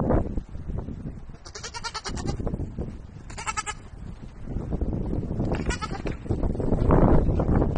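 Baby goats bleating: three short, high-pitched bleats a second or two apart, over rough low background noise that swells near the end.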